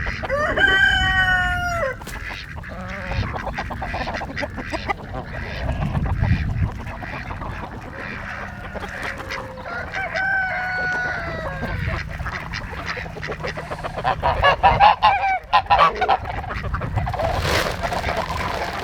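Geese honking in runs of repeated calls, near the start and again about ten seconds in, with chickens calling among them and a steady low rumble underneath.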